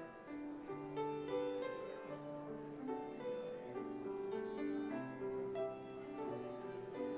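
Keyboard playing slow, piano-voiced music: a melody moving over held chords, with the notes changing about every half second.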